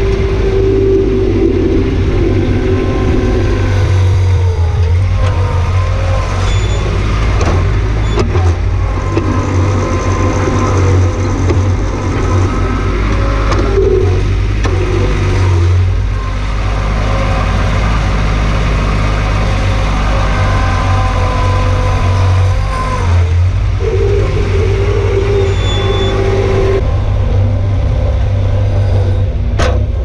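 Bobcat 463 skid-steer loader's diesel engine running steadily under load while its hydraulics work the bucket, with a whining tone that shifts in pitch as the loader moves. A short sharp click sounds near the end.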